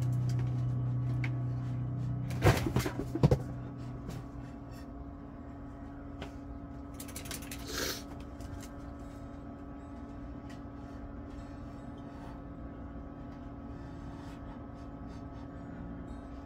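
Handling noise: a few sharp knocks and clatters between two and three and a half seconds in, and a short hiss near eight seconds, over a low steady hum.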